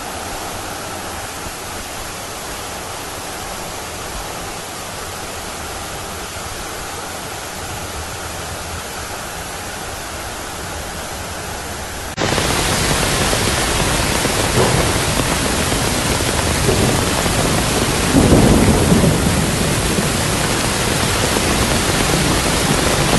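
Heavy rain and muddy floodwater rushing over a road, a steady hiss of water. About halfway through it jumps abruptly louder and harsher, with a few heavier surges after that.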